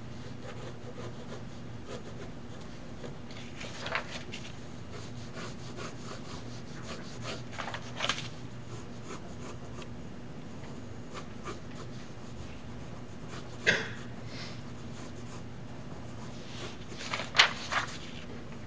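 Pencil sketching on animation paper: soft scratching strokes, with a few brief louder paper sounds as sheets are lifted and flipped on the peg bar, the sharpest about two-thirds of the way in and near the end. A steady low hum runs underneath.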